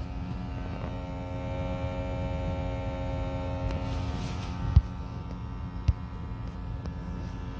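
Bullet vibrator buzzing with a steady electric hum, its tones strongest in the first half. Two short sharp clicks about five and six seconds in.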